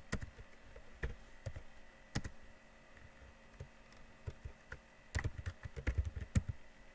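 Typing on a computer keyboard: irregular key clicks, sparse at first, with a quicker run of keystrokes about five seconds in.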